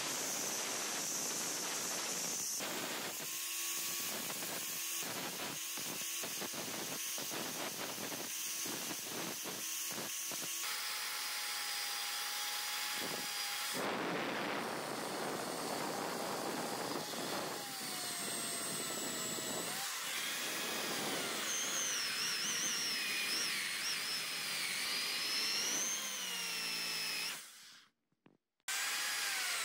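Power tools abrading a steel hammer head. First an angle grinder with a flap disc hisses against the metal, its sound broken off again and again. Then a drill spinning an abrasive wheel against the claw whines, its pitch wandering as it bears down. Near the end the sound cuts out for about a second.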